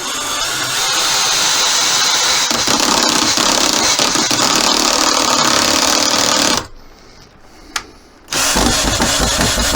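Power screwdriver driving a long 80 mm wood screw into a tight 3 mm pilot hole, labouring under the load: the hole is too small and the screw heats up. It runs for about six seconds, stops with a click, then starts again.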